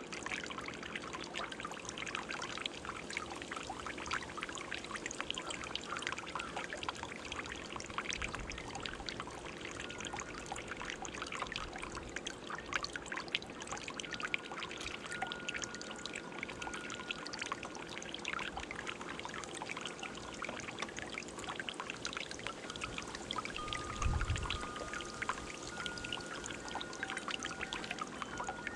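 Water bubbling and trickling steadily in a stone birdbath fountain, a dense patter of small splashes. A soft low thump near the end.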